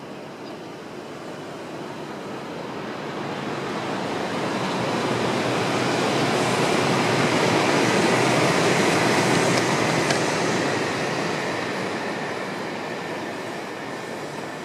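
Shinkansen train passing at speed on the elevated line: an even rushing noise that swells over several seconds, peaks about the middle and fades away.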